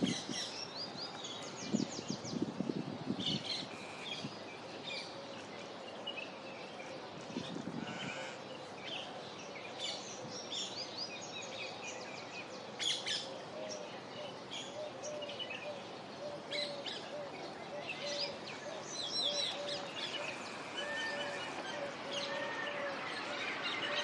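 Several small birds chirping and trilling, with short high calls scattered throughout. In the second half a low note repeats steadily, roughly every half second.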